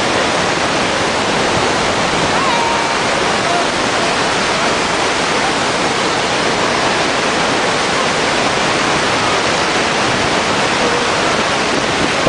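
Steady, loud rushing noise with no break or change.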